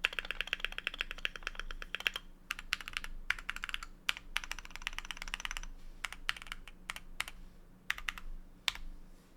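Typing on a Keychron Q1 mechanical keyboard with lubed and filmed Cherry MX Black linear switches and MT3 doubleshot ABS keycaps. Two fast, dense runs of keystrokes, then slower, scattered strokes that thin out near the end.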